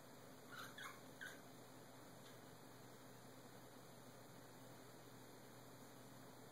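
Cat giving three brief, high squeaky mews in quick succession, about half a second to a second and a half in, during a spat between cats; the rest is near silence.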